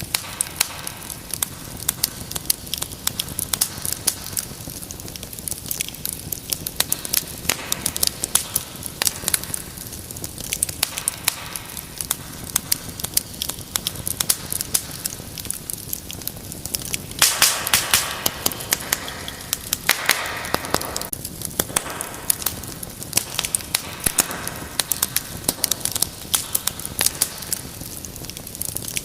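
Wood fire in a fireplace crackling, with frequent sharp pops over a soft steady hiss and a denser, louder flurry of pops a little past the middle.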